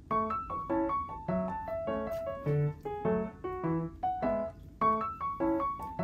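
Background music: a light piano melody of short notes at a steady pace.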